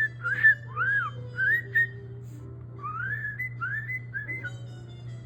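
Clean whistled notes, each gliding up or rising and falling, in two quick runs of about four, over quiet background music.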